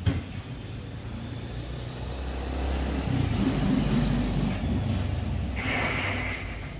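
A motor vehicle's engine rumbling and growing louder, then easing off after the middle, as if passing. There is a brief knock at the very start and a short hiss near the end.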